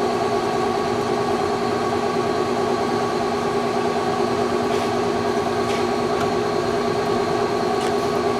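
Leblond engine lathe running under power, its gear train making a steady hum with several held tones while the carriage power feed traverses in reverse. A few faint clicks come in the second half.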